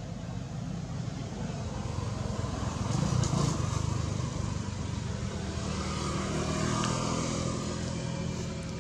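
A motor vehicle engine running steadily, swelling louder about three seconds in and again around seven seconds.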